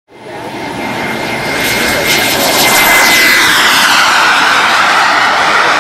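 Radio-controlled model jet's engine running at full power as the model takes off and flies low past: a loud rushing roar with a thin high whine that swells within the first second, then holds steady while its pitch slowly drops as the jet goes by.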